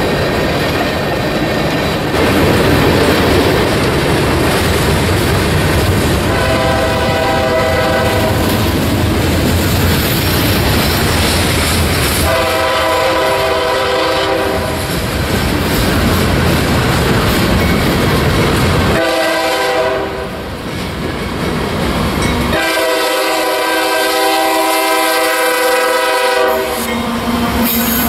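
Freight cars rolling past with the clickety-clack of wheels over rail joints. An approaching CSX diesel locomotive sounds its multi-note air horn in the grade-crossing pattern: long, long, short, then a final long blast of nearly four seconds. Near the end the locomotive draws alongside and its diesel engine comes in as a low steady drone.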